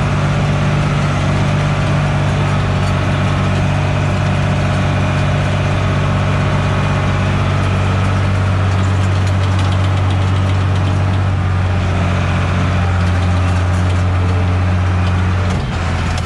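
Fendt Favorit 611 LSA tractor's diesel engine running steadily, heard from inside the cab. Near the end the engine note and level drop a little.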